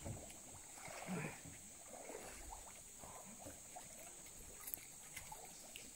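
Faint sloshing of river water as people wade and push a floating fish cage of blue plastic drums through shallow water.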